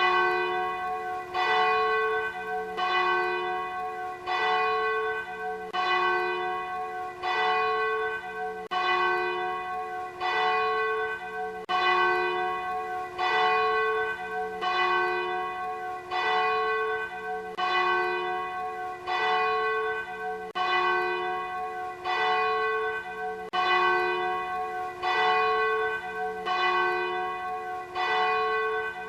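Church bell tolling, struck about every one and a half seconds, each stroke ringing on into the next.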